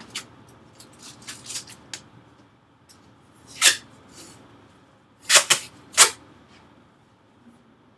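Masking tape pulled off the roll and torn: short, sharp rips, one a little under four seconds in and a quick run of three between five and six seconds in, with light clicks and rustling of handling in between.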